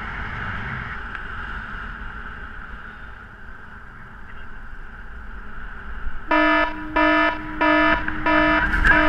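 Wind rushing over the microphone in flight. About six seconds in, a paragliding variometer starts beeping: a repeated electronic beep at one pitch, about one and a half beeps a second.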